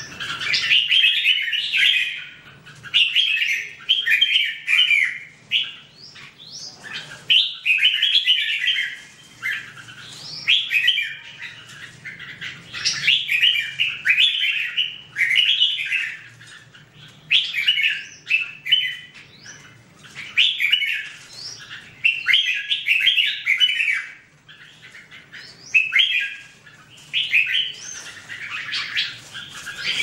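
Red-whiskered bulbuls singing: short, fairly high-pitched phrases of quick chirping notes repeated one after another, a phrase every second or two with brief pauses between.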